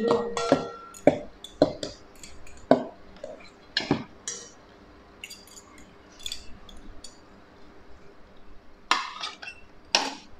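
Metal utensils clinking and scraping against a stainless steel mixing bowl in irregular strokes, the bowl ringing briefly after the first clinks. Two louder clinks come near the end.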